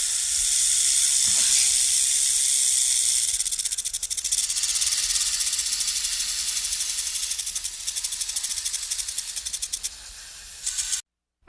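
Snake hissing: a long, steady, high-pitched hiss that flutters rapidly in its second half and cuts off suddenly near the end.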